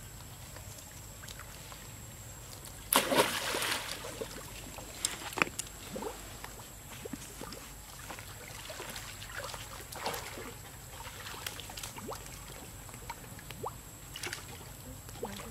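Young macaques swimming and splashing in a pool: one loud splash about three seconds in, then scattered small sloshes and flicks of water.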